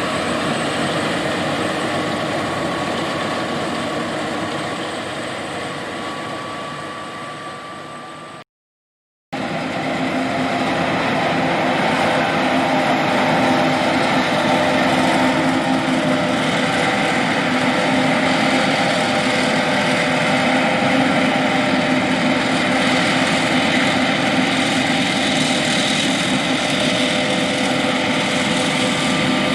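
John Deere S780 combine harvester running steadily while harvesting soybeans, its engine and threshing machinery making a steady hum with several held tones. About eight seconds in the sound fades down, drops out for under a second, then comes back steady.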